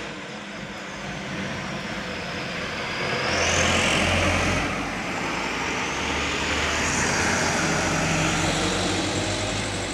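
Small fuel tanker truck driving past at close range: engine and tyre noise swells and fades twice, loudest about four seconds in and again around seven to eight seconds in.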